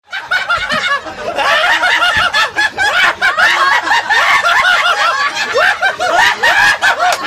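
A group of young men and women laughing loudly together, many voices overlapping in continuous laughter.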